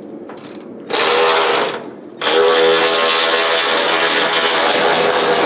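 Handheld power tool running bolts out of a Chevrolet truck's hood hinge, in two runs: a short one about a second in and a longer one of about three seconds, each with a steady motor whine.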